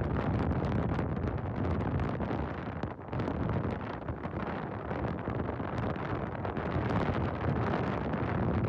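Wind buffeting the microphone of a moving rider: a steady, dense rushing noise with a brief dip about three seconds in.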